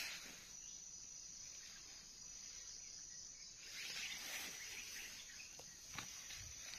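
Faint steady high-pitched insect drone, with a few light clicks and rustles near the end.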